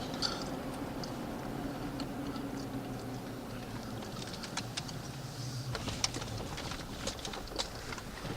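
Pickup truck running at low speed, heard from inside the cab: a steady low engine hum that drops in pitch a few seconds in, with scattered light clicks and ticks growing more frequent in the second half.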